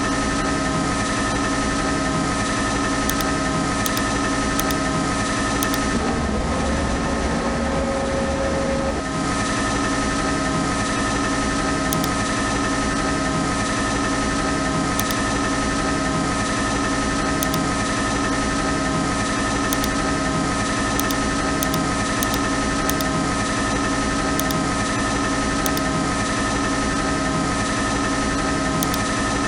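CNC lathe running steadily during a G92 threading cycle: an even machine hum of several held tones over a regular low pulse. About six seconds in, an extra tone rises and holds for about three seconds, then drops away.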